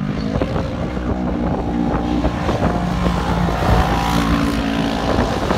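Race UTV engines revving hard as two side-by-sides run across a dirt track, one passing the other; the engine pitch steps up and down with the throttle.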